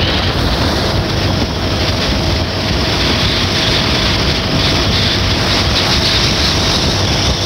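Motorcycle riding at a steady cruising speed: the engine running underneath a loud, constant rush of wind over the microphone.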